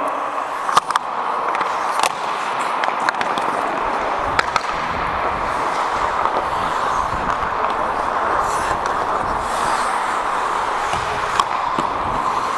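Ice hockey play heard on the ice: skate blades scraping and gliding over a steady echoing rink din, with several sharp clacks of sticks and puck through it.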